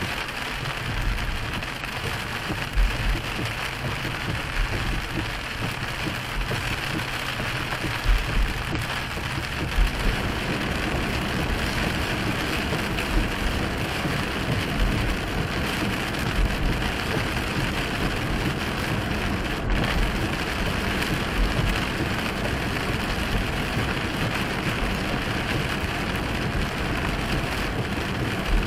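Heavy rain pattering on a moving car's windshield and roof, heard from inside the cabin, with tyres hissing on the wet road. The noise thickens about ten seconds in, and a few low thumps stand out.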